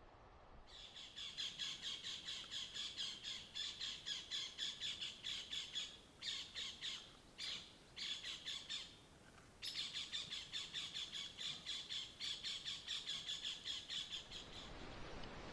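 Birds calling: a dense run of rapid, repeated high squawking calls, several a second, with a few short breaks in the middle.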